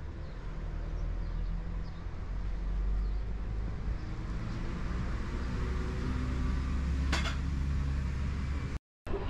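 Outdoor street ambience made up mostly of a steady low rumble. A single sharp knock comes about seven seconds in, and the sound cuts briefly to silence near the end.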